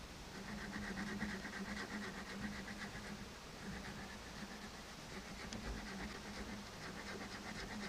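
Serrated flaked-stone knife sawing into wet log wood: a steady scraping of quick, repeated strokes.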